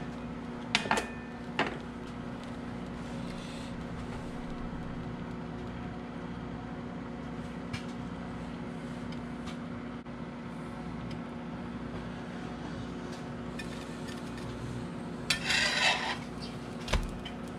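Steady low kitchen hum, with two clacks about a second in as a metal spatula is set down on the stovetop. Near the end a brief scraping as the grilled cheese sandwich is slid across the cast-iron skillet, then one more knock.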